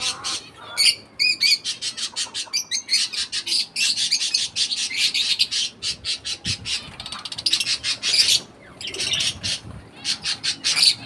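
A cage of small parrots, budgerigars among them, calling all together: a dense, fast, unbroken stream of high, sharp chatter with a few lower whistled calls in the first three seconds.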